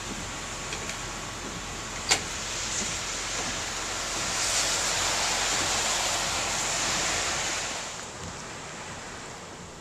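Steady rushing noise of storm wind and rain. It swells for a few seconds near the middle, then eases off, and there is one sharp click about two seconds in.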